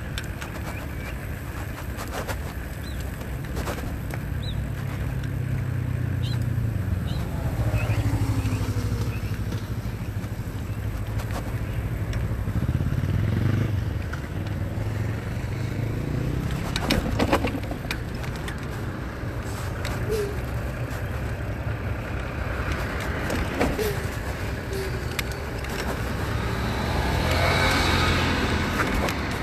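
Road traffic and wind rumbling on the microphone while riding a bicycle beside a busy road, with a few sharp clicks. Near the end, a large truck passes close by and the noise swells.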